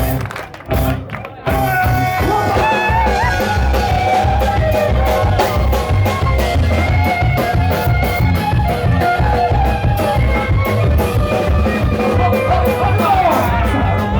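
Live Balkan gypsy punk band playing loud, fast music with a steady driving beat and a wavering lead melody; the sound drops out briefly about a second in, then comes back at full volume.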